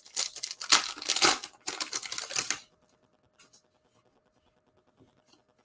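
A foil trading card pack wrapper torn open and crinkled by hand: a dense run of crackling lasting about two and a half seconds, then only a few faint ticks.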